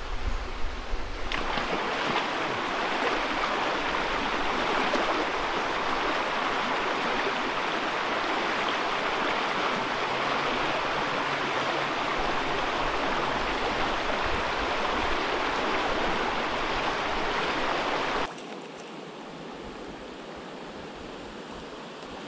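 Creek water running over rocks in a shallow riffle: a steady, even rush. About eighteen seconds in it drops suddenly to a quieter, duller flow.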